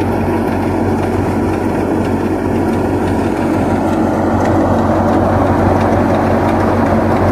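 Tractor-driven grain thresher running: a steady, loud machine noise over the tractor engine's low hum.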